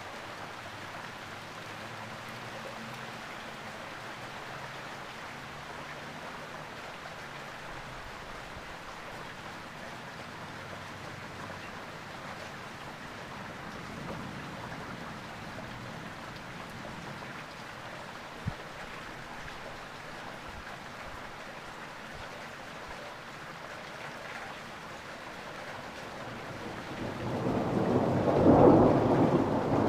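Steady rain falling through a thunderstorm, with one brief sharp tap partway through. Near the end a loud roll of thunder builds and rumbles on.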